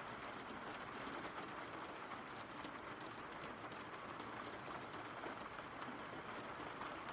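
Steady rain falling, a constant even hiss with scattered faint drop ticks.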